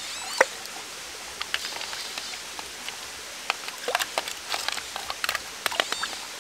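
Hands splashing and sifting gravel in shallow, running stream water, with many small sharp splashes and knocks of stones over the steady trickle of the stream. A few short, high beeps from a handheld pinpointer probe come near the start and near the end as it closes in on a buried coin.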